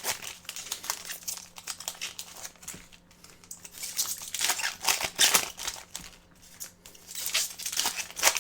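Packs of 2025-26 Upper Deck SkyBox Metal Universe trading cards and the cards inside being handled: wrappers crinkle and cards rustle in several quick spells of rapid strokes.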